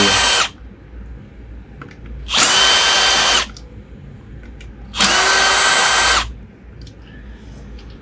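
Cordless drill-driver, set to its lowest speed, backing self-tapping screws out of the plastic hub cover of a mobility scooter wheel. It runs with a steady whine in three short bursts: one stopping about half a second in, then two more of about a second each, with light handling clicks between.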